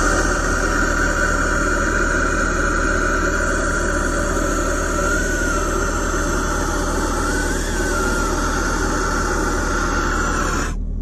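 Hose-fed gas torch burning with a steady hiss; it cuts off suddenly near the end.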